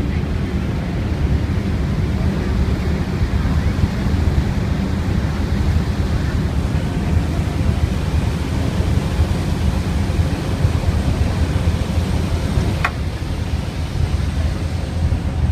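Steady wind rumble on the microphone aboard a moving ferry, mixed with the boat's engine and rushing water. A short click sounds near the end.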